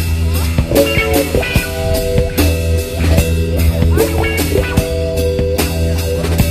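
Instrumental rock music: guitar playing held notes over a steady drum beat and a heavy bass line.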